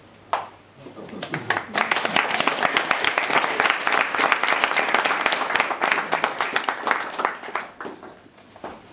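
Audience applauding: the clapping swells about a second in and dies away near the end.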